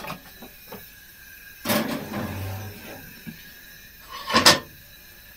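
Handling noises at a gas cooker: a clunk and rattle about two seconds in as the oven door is opened, then a sharp knock of a ceramic pie dish against metal near the end.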